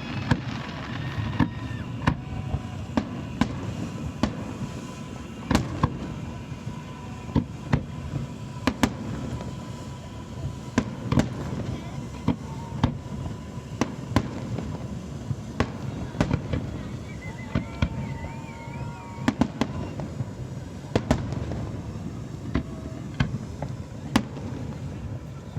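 Fireworks display: aerial shells bursting in an irregular, rapid series of sharp bangs, about one or two a second, over a steady background rumble.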